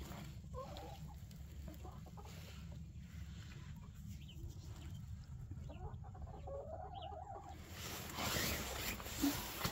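Hens clucking faintly: a few short calls and one longer drawn-out call past the middle, over a steady low rumble.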